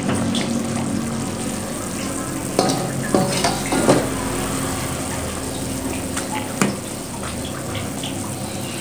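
A pot of water at a rolling boil, bubbling steadily as spice paste is stirred into it. Several sharp knocks of a spatula against the metal pot and wok about three to four seconds in, and one more later.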